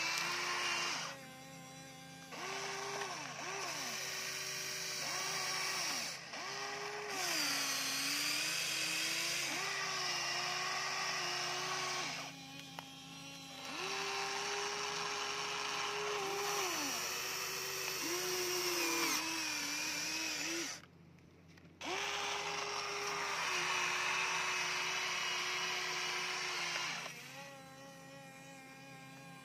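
HUINA remote-control model excavator's small electric motors whining as it works the arm and bucket in mud. The whine runs in bursts of a few seconds, with short pauses about a second in, around the middle, past two-thirds and near the end, and its pitch dips and recovers as the motors move.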